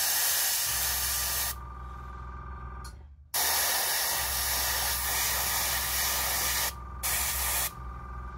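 Airbrush spraying thinned acrylic paint in three bursts of hiss: a short one, a longer one of about three seconds, and a brief one near the end. A steady low hum carries on between the bursts.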